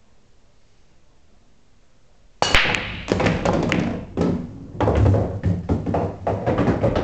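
Break shot in nine-ball pool: a sudden sharp crack as the cue ball smashes into the racked balls about two and a half seconds in, then a rapid clatter of ball-on-ball clicks with low thuds from balls hitting the cushions, going on until the end.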